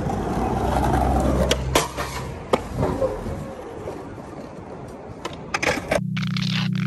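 Skateboard wheels rolling on street asphalt with a steady low rumble, broken by several sharp clacks of the board. The rumble fades after a couple of seconds. Electronic music starts near the end.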